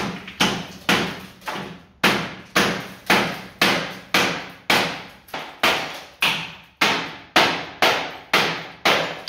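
Hammer blows on a door frame, a steady run of about two strikes a second, each ringing briefly, as the frame is knocked out of the wall during demolition.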